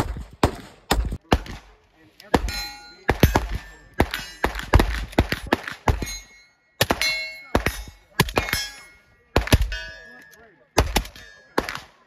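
Rapid, uneven gunfire, about two to three shots a second, with a metallic ringing after many of the shots from steel targets being hit. There is a short gap a little past the halfway point.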